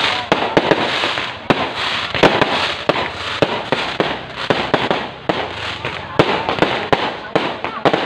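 Fireworks going off: a rapid, irregular string of sharp bangs and pops over a dense, continuous crackle.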